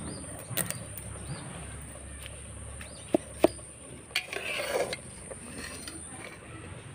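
Steady high drone of insects in the background, with two light metallic clinks of steel cookware about three seconds in and a brief rustle of handling just after.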